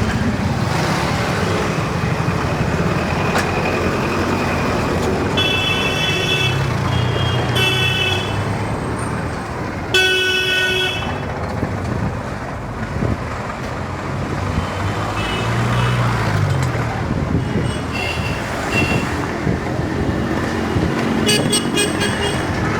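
Busy street traffic: a steady wash of engine and tyre noise with vehicle horns honking again and again. Short beeps come about 5 and 8 seconds in, a longer, louder horn about 10 seconds in, and a quick run of beeps near the end.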